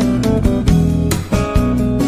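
Background music: a guitar playing plucked and strummed notes.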